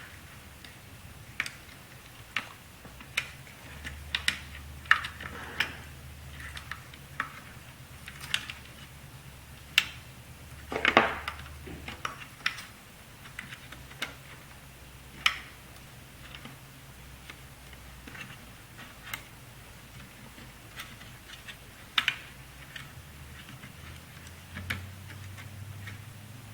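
Irregular small clicks and taps of plastic and metal laptop parts being handled as a DC power jack harness is worked into place under the laptop's chassis, with a longer scraping rasp about eleven seconds in.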